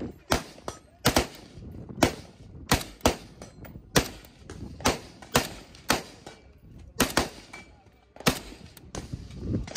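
AK-pattern rifle fired semi-automatically: about a dozen shots at an uneven quick pace, roughly one every half-second to second, each a sharp crack with a short echo.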